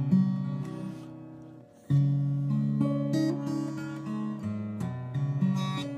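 Acoustic guitar played solo, chords ringing and changing. One chord fades almost out before a fresh, loud strum about two seconds in.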